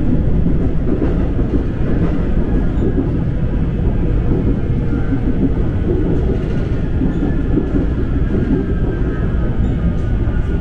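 Seoul Subway Line 2 electric train running on surface track, heard from inside the carriage: a steady, loud rumble of wheels on rail. A faint high whine slowly falls in pitch in the second half.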